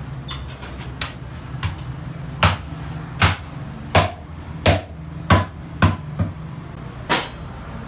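Meat cleaver chopping through a rack of lamb ribs on a wooden stump block: a series of about ten sharp chops, roughly one every two-thirds of a second at its steadiest, over a steady low hum.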